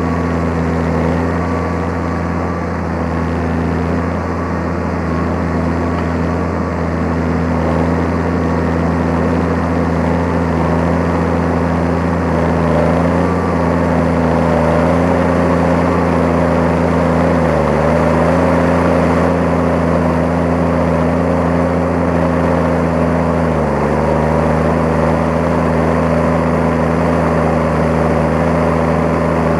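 New Holland T7030 tractor's six-cylinder turbo diesel running steadily under ploughing load, heard close to its exhaust stack. Twice in the second half the engine note sags briefly and recovers.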